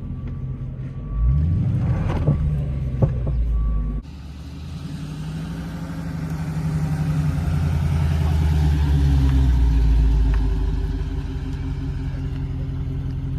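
Dodge Charger Scat Pack's 6.4-litre HEMI V8 running under way, its revs climbing about a second in. After an abrupt cut the engine note swells for several seconds, then eases off.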